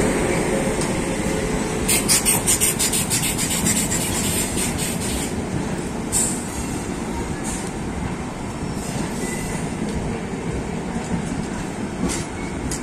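Passenger coaches of the Jallianwala Bagh Express rolling out of the station, a steady rumble of wheels on rail. About two seconds in there is a quick run of wheel clicks lasting about three seconds, then a few single clicks, and the sound slowly fades.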